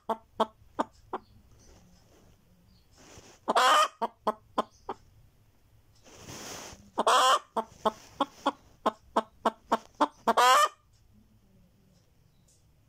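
Naked-neck hen clucking: runs of short clucks, each building to a loud drawn-out squawk, three times over, then going quiet near the end. This is the buk-buk-bagawk pattern of a hen's egg-laying song. A soft breathy hiss comes just before the second squawk.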